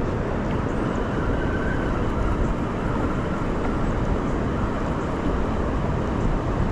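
Wind buffeting the microphone: a steady low rumbling rush.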